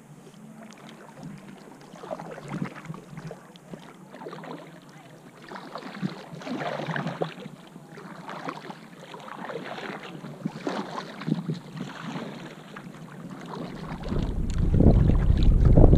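Water splashing and lapping against a paddled inflatable kayak in irregular bursts. Wind starts buffeting the microphone near the end.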